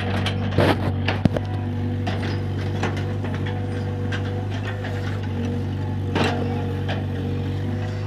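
Excavator engine running steadily, with scattered sharp knocks and clanks: a few in the first second and a half and another about six seconds in.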